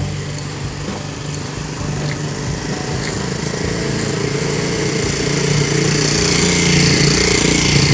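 A small engine running steadily, growing louder toward the end.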